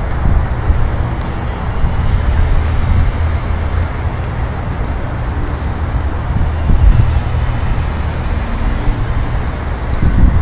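Steady low outdoor rumble, with no distinct events.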